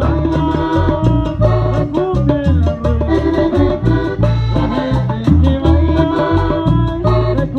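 Cumbia band music: a melody over a strong bass line and an evenly spaced percussion beat.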